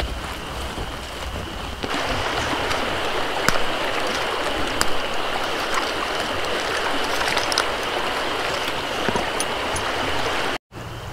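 Steady rush of river water running, louder from about two seconds in, with a few faint clicks over it and a brief dropout near the end.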